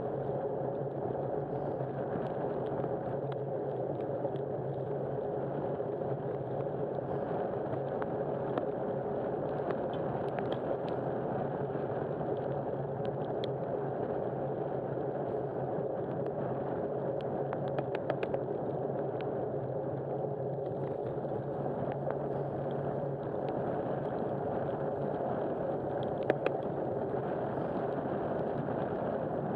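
Steady drone of a running vehicle with road noise, even throughout, with a few faint clicks about two-thirds of the way in and near the end.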